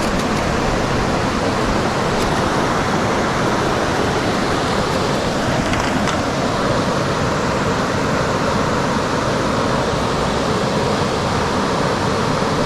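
Mountain stream rushing steadily, a constant loud wash of flowing water.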